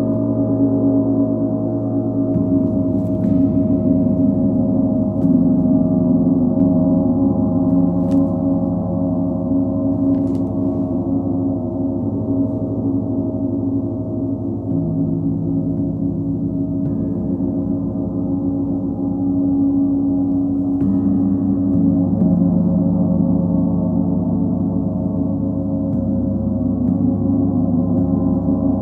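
Large planetary gongs (Sun, Full Moon and Earth gongs) sounding together in a continuous wash: a dense, sustained drone of many overlapping low tones that swells and shifts, with the deepest notes changing a few times.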